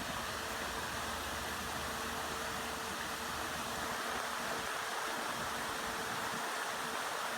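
Steady rushing water of a stream driving a running mini hydro set-up, with a faint steady hum underneath.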